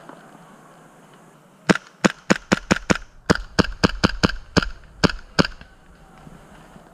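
Airsoft pistol firing a rapid string of about fifteen shots, each a sharp crack, roughly four a second over about four seconds.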